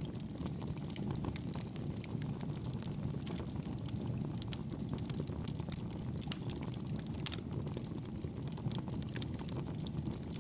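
Wood fire burning in a fireplace: a steady low rumble of flames with frequent small irregular crackles and pops.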